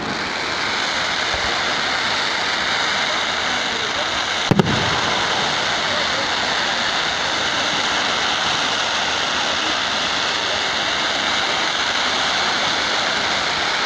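Fireworks display: a loud, steady, dense hiss with one sharp firework bang about four and a half seconds in.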